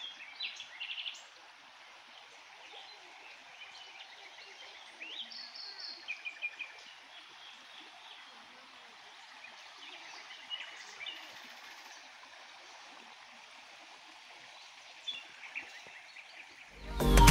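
Small birds chirping and trilling over the steady rush of a running stream. Background music comes in loudly near the end.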